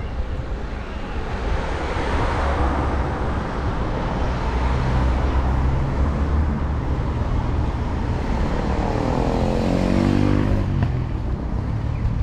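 Road traffic: cars passing close by on a city street, swelling and fading as each goes past, with one vehicle's engine note falling in pitch as it passes about three quarters of the way through.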